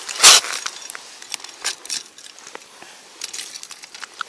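Steel ice-fishing gaff scraping and clicking against the ice in a fishing hole, with one loud, short crunch about a quarter second in and scattered crunches and clicks of ice after.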